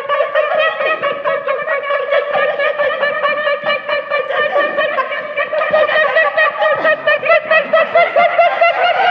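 A group of performers sounding overlapping wavering, warbling tones together in a dense, rapidly wobbling chorus.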